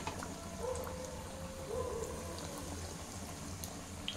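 Vermicelli-coated mutton and potato kebabs deep-frying in hot oil in an aluminium kadhai: a steady bubbling sizzle from kebabs just put into the oil.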